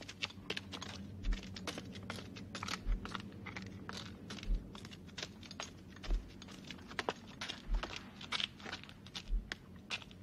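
A slow, steady low thud about every second and a half, like a bass pulse in a film score, under dense, irregular crunching and clicking.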